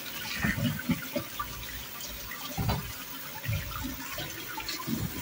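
Tap water running in a kitchen sink as peppers and tomatoes are rinsed by hand, with uneven splashing.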